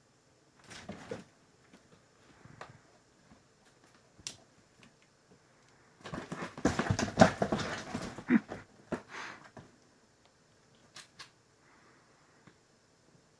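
Scuffling, tapping and rustling of a kitten at play, in short scattered bursts with a busier stretch of rustling and knocks a little past the middle.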